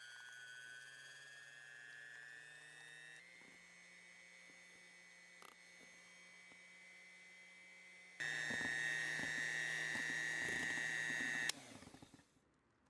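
Electric hand mixer's motor whining steadily as its twin beaters whip cream. The whine steps up in pitch about three seconds in, grows much louder about eight seconds in, and cuts off near the end.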